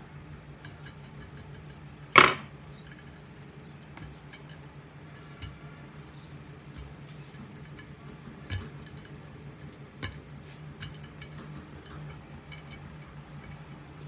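Small scattered clicks and ticks of a thin screwdriver prying at the parts on the neck of a CRT picture tube, with one much louder sharp clack about two seconds in. A low steady hum runs underneath.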